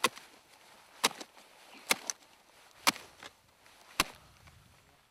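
A spade chopping down into heather-covered ground, digging into a rabbit burrow: five sharp strikes about a second apart, with a lighter knock just after the third.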